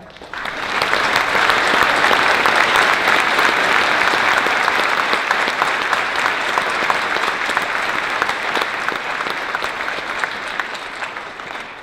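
A large audience clapping steadily, building up in the first second and easing slightly near the end.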